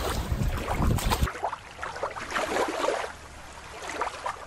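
Wind buffeting the microphone over shallow water lapping, cut off abruptly about a second in and replaced by quieter aquarium room noise, a soft hiss with irregular swells.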